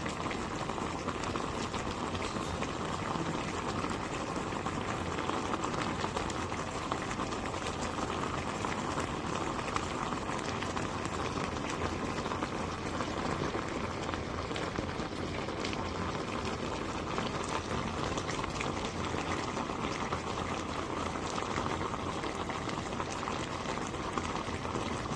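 Pot of kimchi jjigae (kimchi stew) at a steady boil: dense bubbling and popping that keeps on without a break.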